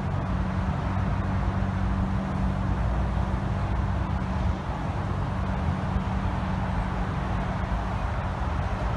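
Diesel locomotive engine running with a steady low drone as a train draws slowly into the station.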